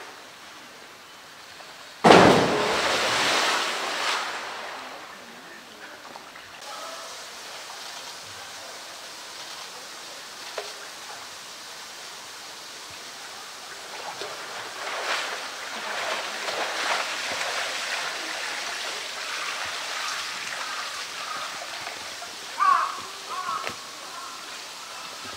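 A polar bear plunging into its pool about two seconds in, a loud sudden splash that fades over a couple of seconds, followed by water sloshing and lapping as it swims.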